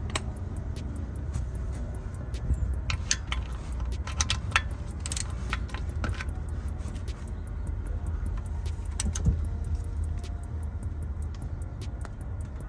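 Scattered metal clinks and taps of hand tools being handled under a car, over a steady low rumble.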